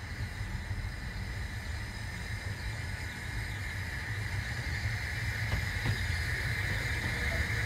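Narrow-gauge steam locomotive drawing its train nearer: a steady low rumble under a steady hiss, both growing slowly louder.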